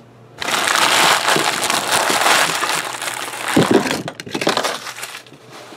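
Crinkling and crumpling of foil trading-card pack wrappers: a loud, rustling crackle that starts about half a second in and tapers off after about four seconds.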